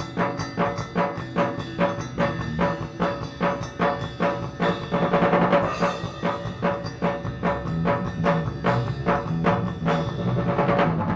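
Live band music driven by a drum kit playing a fast, steady beat, about five hits a second, over sustained instrument notes, with a cymbal-like swell around the middle.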